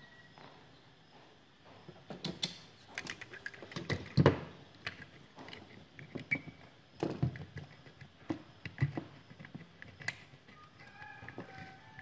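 Small screwdriver clicking and scraping in the screw terminal blocks of a circuit board as wires are fitted and tightened, with irregular taps and knocks of handling, the loudest about four seconds in.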